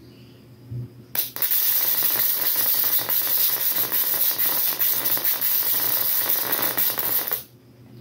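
High-voltage arc from a flyback transformer's output, crackling densely and steadily from about a second in, then cutting off suddenly near the end.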